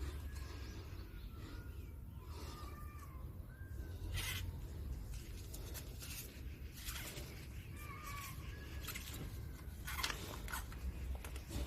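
Small birds chirping faintly in short curved calls, in two clusters. Three sharp clicks stand out, and a steady low rumble runs underneath.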